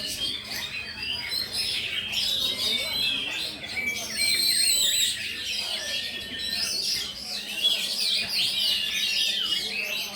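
Oriental magpie-robin (kacer) singing in full competition song among other caged songbirds: a dense, unbroken stream of rapid, varied whistled and chattering phrases, loudest about four to five seconds in.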